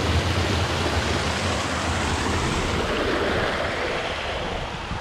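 Water pouring over a small concrete weir in a stone-lined channel: a steady rushing splash that eases slightly near the end.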